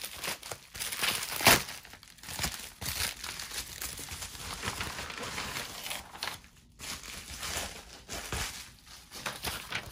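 A shipping package being opened by hand: irregular crinkling, rustling and tearing of its wrapping, with the loudest crackle about a second and a half in.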